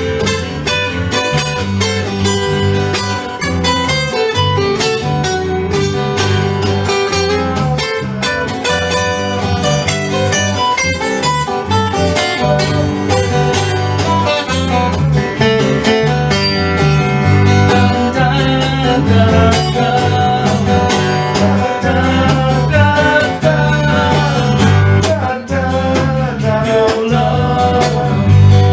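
Country-style song in an instrumental passage: acoustic guitar picking and strumming over a steady bass line.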